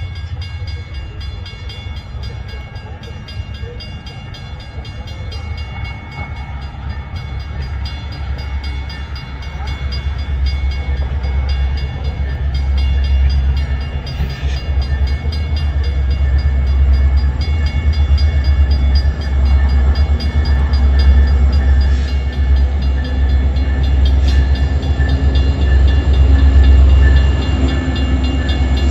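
Metra diesel-hauled commuter train approaching and pulling into the station, its low engine and wheel rumble growing steadily louder over the second half.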